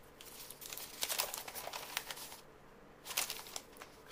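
Paper and foam packaging rustling and crinkling as hands handle a paper slip and grip the engine in its foam insert. The rustling comes in two spells, a longer one from about a second in and a shorter one about three seconds in.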